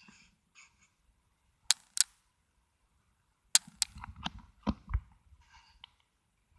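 A series of sharp clicks and light knocks, like small objects being handled: two clicks about two seconds in, then a quicker cluster of clicks and duller knocks past the halfway point.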